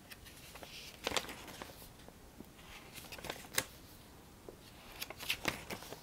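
Tarot cards being handled: scattered short card snaps and rustles, the sharpest a little over a second in, about three and a half seconds in, and twice near the end.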